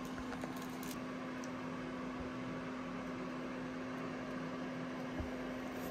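A steady low hum with a constant tone over an even hiss, from a running machine.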